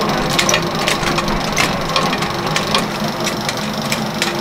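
A small motor-driven machine running steadily with a hum, with irregular clicks and rattles over it.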